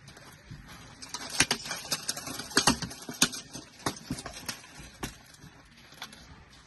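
A quick flurry of hard clacks and knocks from swords striking shields and plate armour in armoured sparring. It starts about a second in, is loudest through the middle, and thins out to a few lighter hits after about five seconds.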